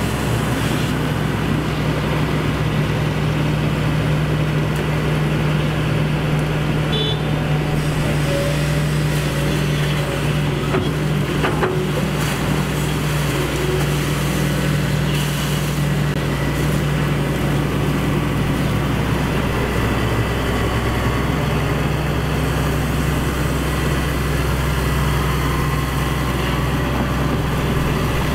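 Excavator's diesel engine running steadily, with a couple of faint knocks partway through.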